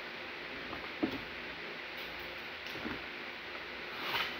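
Quiet eating sounds over a steady hiss: a couple of light taps and, near the end, a brief scrape of a metal fork in a glass baking dish.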